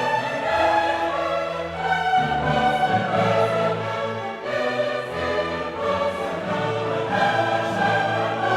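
Background music: orchestral music with a choir, held chords changing about once a second.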